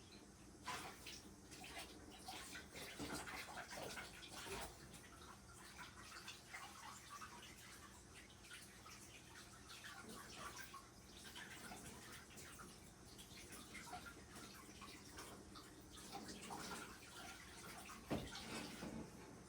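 Faint washing-up at a kitchen sink: tap water running and dripping, with scattered light clatters.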